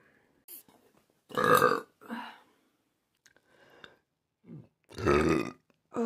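A woman burping twice, each burp about half a second long, the second coming about three and a half seconds after the first.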